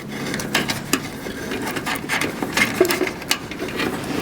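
Irregular small clicks and rustling from handling a wiring harness and its plastic connectors while feeding them into a car door.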